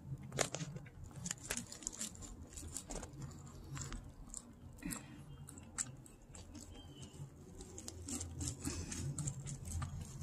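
Maltese dog licking peanut butter off plastic wrap stretched over a canvas: a run of irregular, quick, wet licking and smacking clicks.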